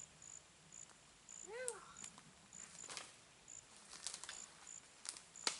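Faint insect chirping in short, high pips repeating irregularly. About a second and a half in comes one short call that rises and falls in pitch, and a few light clicks follow later.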